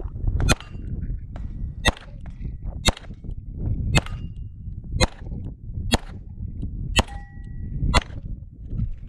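Beretta 92 9mm pistol firing eight shots, about one a second, at steel targets. A couple of the shots are followed by the brief ring of a struck steel plate.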